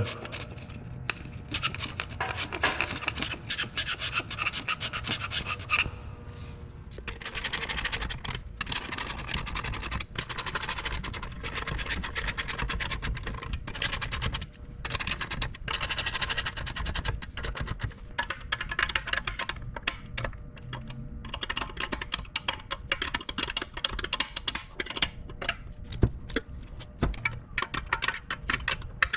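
Hand scraper scraping old silicone gasket sealant off the engine block and front cover's sealing faces, in many quick, repeated strokes with a short pause partway through.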